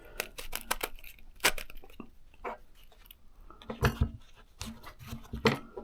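Small hard tool parts being handled: an irregular run of clicks and knocks, with louder knocks about a second and a half in, near four seconds, and near the end.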